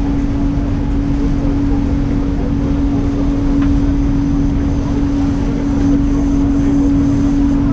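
Passenger ship's engines running with a steady, even hum and a low rumble underneath.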